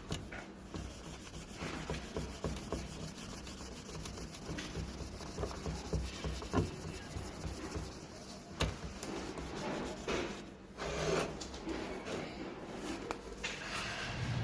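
Scraping and rubbing on a car radio's LCD screen panel to strip off the old polarizer film and glue: irregular scratchy strokes with occasional sharp clicks.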